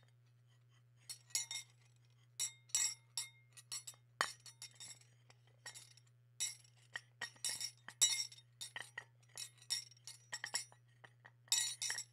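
Irregular clinks of glass and dishes, many in quick succession with short gaps between, over a steady low hum.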